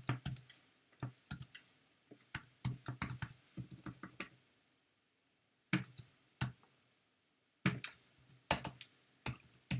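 Computer keyboard typing: short runs of separate keystrokes entering an equation, with a pause of over a second in the middle.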